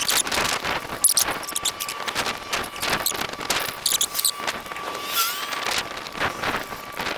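Burning lithium-polymer battery packs from a crashed RC car crackling and snapping irregularly, with a few short hissing bursts and a thin steady high tone alongside.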